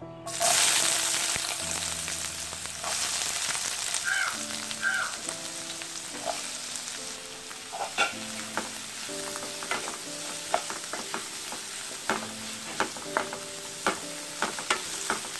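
Sliced onions and green chillies dropped into hot oil in a metal kadai: a loud sizzle that starts suddenly just after the start and settles into steady frying. A wooden spatula stirs them, knocking against the pan several times in the second half.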